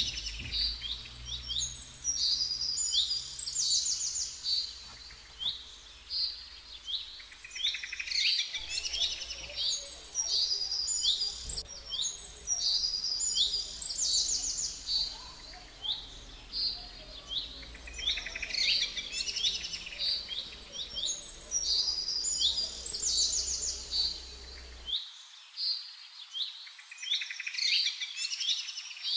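Small songbirds chirping and singing without pause: a busy run of quick, high chirps and trills repeating over and over.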